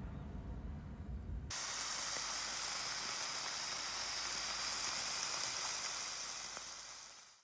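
A low rumble, then, about a second and a half in, a sudden switch to a steady hiss that fades out near the end.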